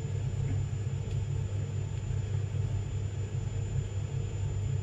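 3D pen's small filament-feed motor running steadily while extruding ABS plastic, a continuous low whir with a faint thin high whine above it.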